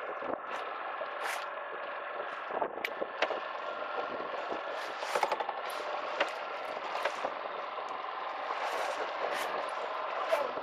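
Outboard motor running steadily, a drone with several steady tones, with scattered sharp clicks and short hissy bursts over it.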